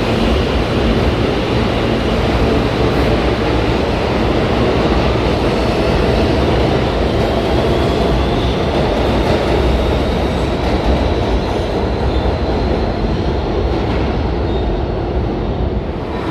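New York City subway train moving through the station: a loud, steady rumble and clatter of steel wheels on the rails, with a faint high squeal in the middle.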